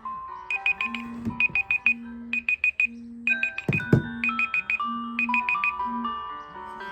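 A phone alarm ringtone playing: a bright electronic melody with a quick run of four or five high beeps about once a second, over a repeating low held tone.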